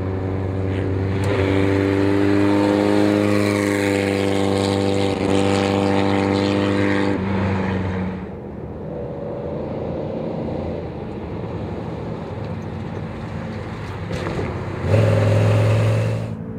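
Off-road race vehicles' engines running at speed. For the first seven seconds a race VW Beetle's air-cooled flat-four runs hard at high, steady revs, then a quieter, more distant race-truck engine follows. A loud burst of engine near the end cuts off suddenly.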